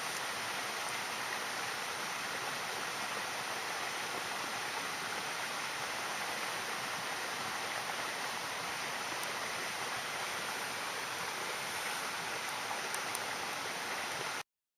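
Steady rushing of flowing water, cutting off abruptly near the end.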